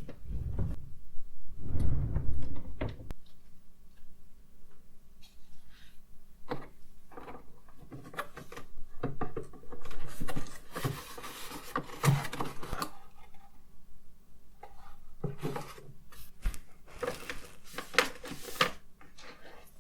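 Rummaging through drawers and cosmetic bags: a string of small clicks and knocks with rustling, plus low thumps in the first few seconds.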